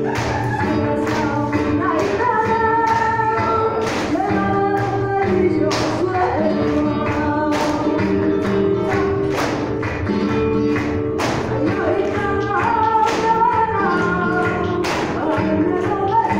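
Flamenco music playing for dancing: a voice singing over sustained instrumental notes, punctuated by sharp percussive hits.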